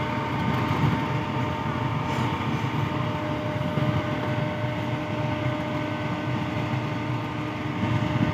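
GEU40 diesel locomotive idling while standing at a platform: a steady engine rumble with a few constant tones running through it.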